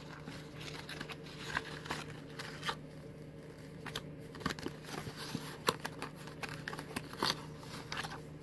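Plastic packaging crinkling and rustling in irregular short snaps as it is handled and opened, over a steady low hum.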